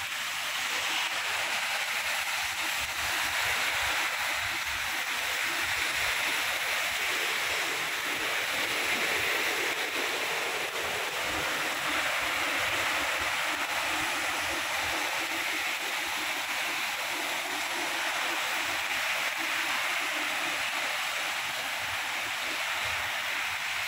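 Steady rain falling: an even, unbroken hiss of rainfall with a faint low rumble underneath.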